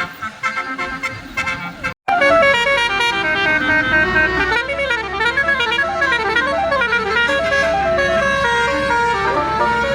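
A bus's multi-tone telolet horn playing a loud melody of stepped notes that warble up and down. A short drop-out about two seconds in comes before the loudest part of the tune.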